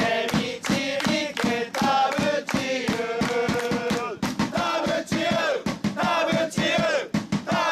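Football supporters singing a player's personal chant together in unison, with a steady rhythmic beat of sharp hits under the voices.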